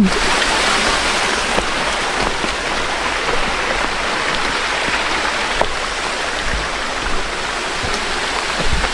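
Waterfall's rushing water, a steady, even hiss.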